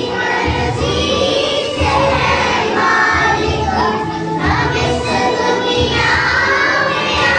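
A children's choir singing in unison over a musical accompaniment with a steady beat.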